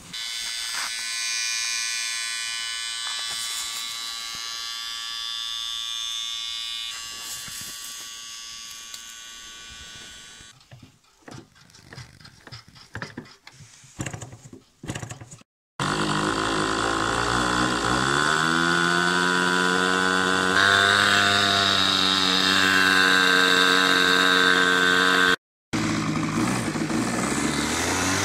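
A steady buzz that fades away, then scattered clicks and knocks. After a cut, the model airplane's O.S. nitro glow engine runs loud, its pitch rising for a couple of seconds as it picks up and then holding steady.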